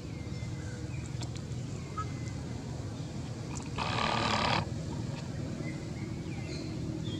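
Baby macaque whimpering with faint, thin, high cries at intervals, and one louder, harsh cry of under a second about four seconds in, over a steady low background rumble.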